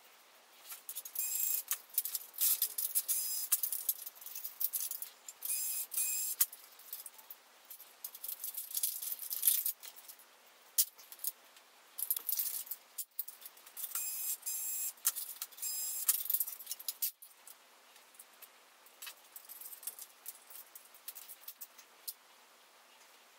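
Rapid, dense clicking and clattering of small plastic and metal printer/scanner parts being handled, sped up, coming in loud bursts with quieter stretches between.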